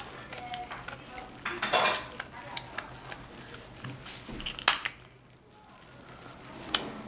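Kitchen scissors snipping through the shell of a cooked king crab leg: a run of small clicks and crackles with a few sharp crunches, the loudest a little after halfway.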